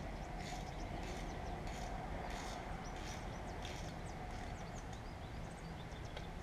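Faint, light scraping and ticking of a small hand tool on the stub of a broken bolt in a tractor's cast-iron axle housing, as the bolt is worked at to free it without drilling, over a steady low background hum.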